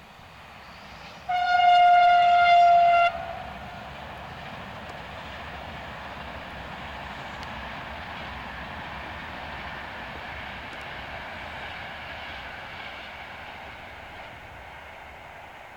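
A train horn sounds one long blast of about two seconds, a single steady tone. It is followed by the running noise of a passing train, which builds and then slowly fades.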